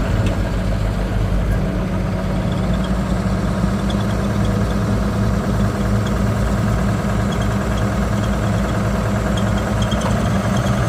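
Heavy machine's diesel engine running steadily, with an even low engine note that neither rises nor falls.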